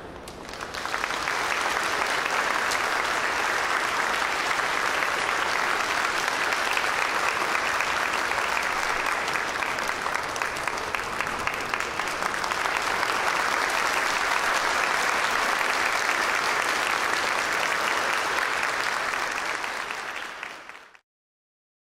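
Audience applauding steadily, fading quickly and cutting off about a second before the end.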